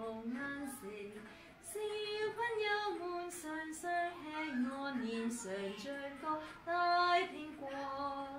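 A woman singing a Cantonese children's song unaccompanied, in held notes that step up and down, with a short pause between lines about a second in. The sung lines are 'siu2 pang jau5 mun4 soeng soeng hek3' and 'lim5 soeng zoeng6 go daai6 ping gwo' (children eat it all the time, their faces look like a big apple).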